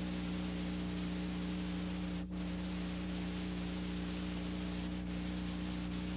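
Steady hiss with a constant low hum, the noise of an old analogue film-to-video transfer, with no sound from the scene itself; a brief dropout a little past two seconds in.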